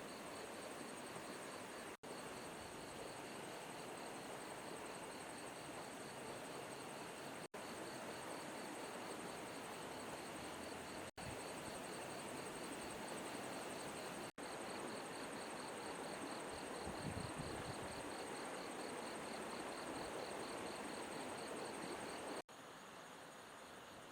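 Insects chirring in a fast, even pulse over the steady rush of flowing river water. The sound cuts out for an instant several times.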